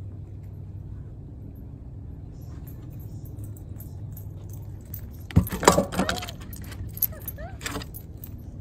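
A dog's collar tags and collar hardware jangling, with clicks and clatter, as it runs up close about five seconds in, over a steady low hum.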